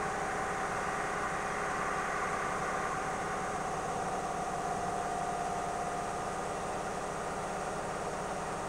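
Steady mechanical hum with a whining tone, unchanged throughout.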